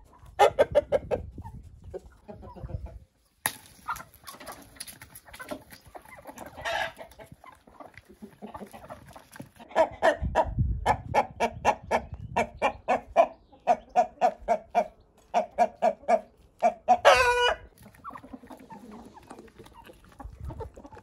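Domestic chickens clucking: a short burst of calls at the start, then from about ten seconds in a long run of loud, evenly spaced clucks, ending in a louder drawn-out call shortly before the end.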